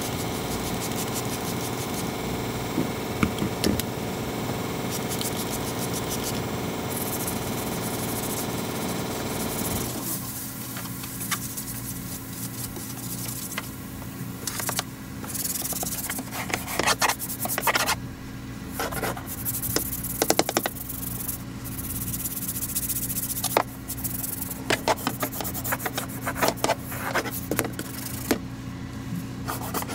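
Hand scrubbing and wiping on a semi truck cab's floor and door step: irregular rubbing strokes over a steady hum, which drops in level about ten seconds in.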